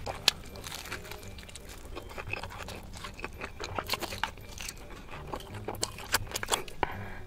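Close-up chewing and biting on cheesy bread, with many sharp, irregular crunching clicks.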